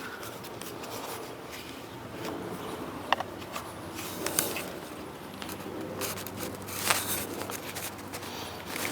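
Scattered scrapes and clicks of rubber and plastic being handled as a rubber foot pad is pried onto a Kreepy Krauly Kruiser suction pool cleaner with a screwdriver.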